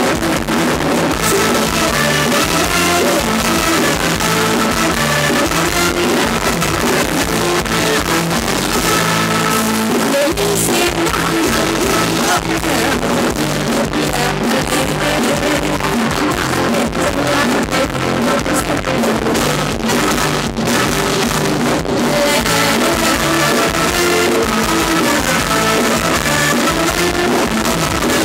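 Live band playing loud Thai ramwong dance music with a steady, unbroken beat.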